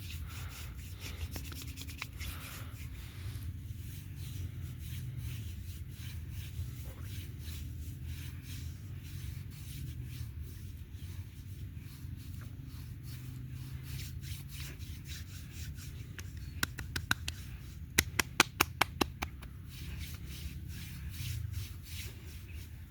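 Hands rubbing and stroking over oiled skin in a massage. About three-quarters of the way through comes a quick run of about ten sharp clicks in a little over a second, the loudest sounds.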